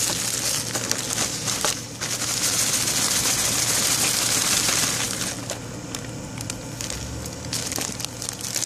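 Clear zip-top plastic bag holding powdered drink mix, crinkling as it is handled, most densely in the first half, then with lighter, scattered crackles toward the end.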